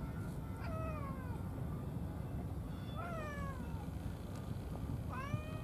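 A cat meowing three times, about two and a half seconds apart: the first two calls slide down in pitch, the last rises and holds near the end.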